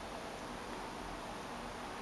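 Quiet room tone: a steady, even hiss with no distinct sounds.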